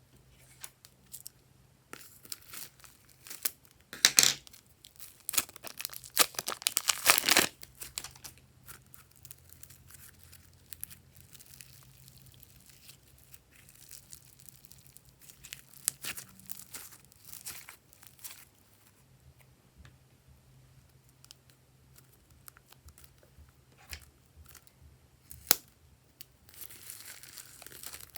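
Glossy slime being stretched, folded and squeezed by hand, giving irregular crackling and tearing sounds. The crackles are loudest in bursts about four and six to seven seconds in, then come sparser with a few sharp snaps.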